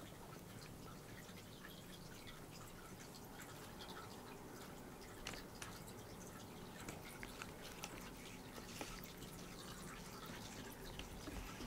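Gray tabby Scottish Fold cat grooming itself: faint, quick wet clicks and smacks of its tongue licking fur and paw, scattered irregularly and more frequent from about halfway in, over a steady low room hum.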